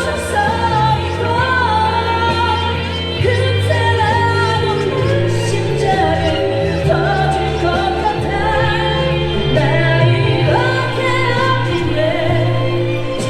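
A female vocalist singing a pop ballad live over a backing track with a steady bass line.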